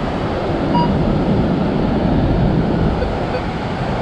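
Ocean surf and wind on the microphone: a steady, rushing rumble that swells a little in the middle.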